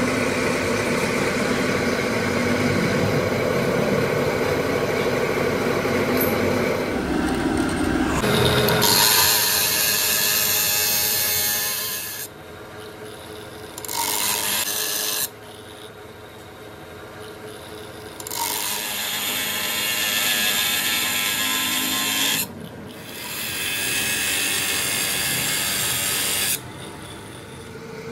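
Handheld power tool working on metal: a steady running sound at first, then four separate spells of grinding lasting a few seconds each.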